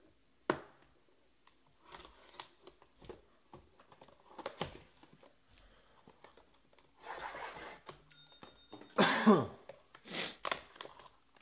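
Hands cutting the shrink-wrap on a sealed trading-card hobby box and opening it: a sharp click about half a second in, crinkling plastic and light clicks, then louder rasping of cardboard and wrapping as the box is pulled open and a pack is slid out near the end.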